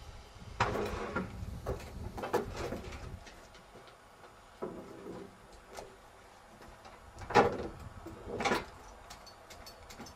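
Metal clunks and rattles from a truck's tail lift coming down to the ground and a hand pallet truck loaded with feed sacks being pulled off it. The two loudest knocks come about seven and a half and eight and a half seconds in.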